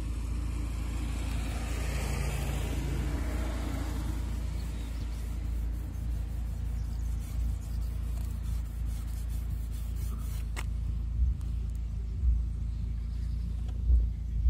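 Outdoor traffic rumble, with a car passing by about two seconds in, swelling and then fading. A few dull thumps come near the end.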